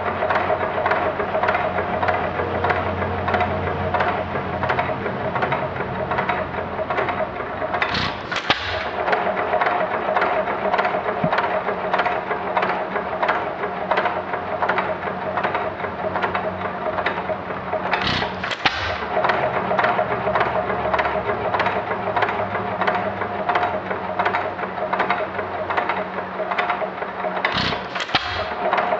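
1919 Economy 2½ hp Model E hit-and-miss engine running with a fast, even clatter, coasting between firing strokes, with a louder firing stroke about every ten seconds, three in all.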